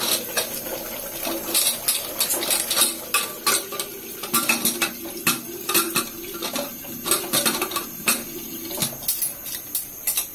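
Pressure cooker lid being fitted and locked onto the pot: repeated metal clinks, knocks and scrapes as the lid is seated and the long handles are clamped together.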